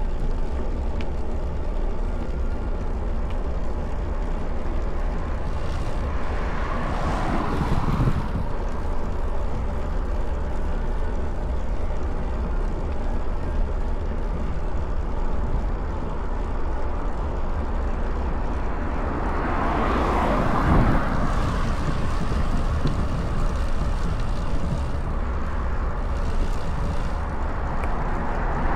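Wind rumbling steadily on a bike-mounted action camera's microphone while riding, with cars swooshing past: one about seven seconds in, a louder one about twenty seconds in, and another coming up near the end.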